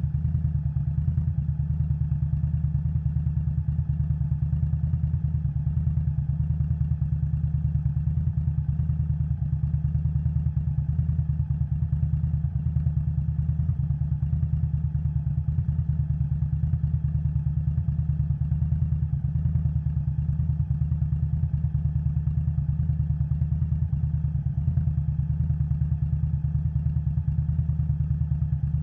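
2021 Indian Scout Bobber Twenty's V-twin engine running through Vance & Hines Twin Slash exhaust at a steady, unchanging engine speed, a low even pulsing with no revving.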